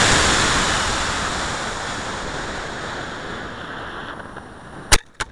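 Rushing flight noise of a model rocket climbing on a D12-3 motor, heard from a camera riding on it just after liftoff: a steady hiss that fades gradually, then two sharp cracks about five seconds in.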